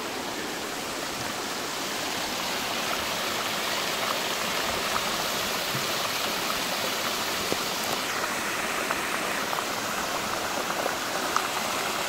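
Small waterfall rushing steadily into a rocky plunge pool, with a few faint ticks in the second half.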